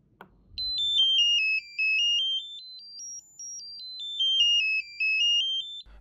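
Small speaker driven by an STM32 microcontroller's square-wave output, playing a high-pitched electronic tone that steps down in pitch and back up, twice over: the sound-level test triggered by holding the push button pressed. A short click from the button comes just before the tone starts.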